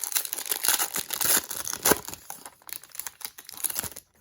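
Plastic wrapper of a basketball trading card pack crinkling, with quick clicks and rustles of cards being handled; loudest a second or two in.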